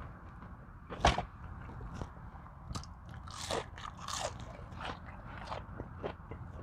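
Close-miked eating: one sharp bite about a second in, then crunchy chewing of fried food.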